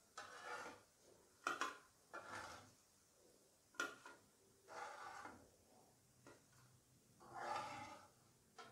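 A spatula scraping under crisp fried potato slices on a flat nonstick tawa, about four short scrapes, with a few sharp clicks of utensil on pan or plate about one and a half seconds and four seconds in.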